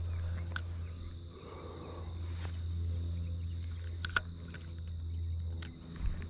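Spinning reel being cranked slowly, a steady low gear whir that breaks off briefly near the end, with a few sharp clicks over it. A thin, steady high-pitched tone runs underneath.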